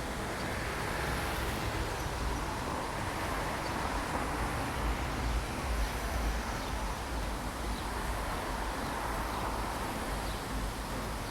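Steady rush of water falling down a waterfall, with an uneven low rumble beneath it.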